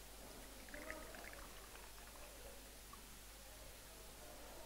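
Faint pouring of vodka from the bottle into a jigger, with a few light clinks about a second in.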